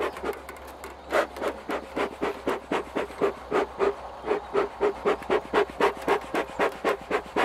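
Bee smoker's hand bellows squeezed over and over, each squeeze a short puff of air, about four a second, fanning the freshly lit twigs and grass in the smoker's can to get it burning and smoking.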